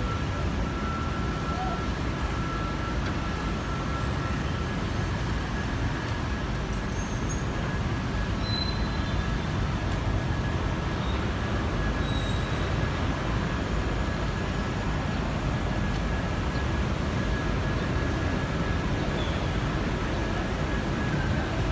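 Steady outdoor city traffic noise: an even, low rumble with a faint steady high tone running through it.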